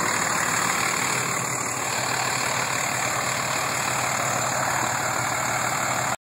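Dodge pickup's Cummins inline-six turbodiesel idling steadily, with no revving. The sound drops out for a split second near the end.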